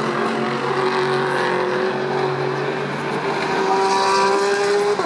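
GT3 race car engines running hard on track, several cars heard at once, their engine notes holding and rising slightly. The sound is loudest about four seconds in, and one engine note cuts off just before the end.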